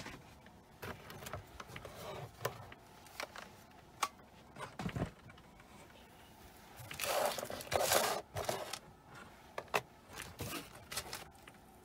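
Clear plastic bag of jewelry being handled and shifted on a table: crinkling plastic and scattered light clicks of the metal pieces. The loudest crinkling comes about seven to eight and a half seconds in.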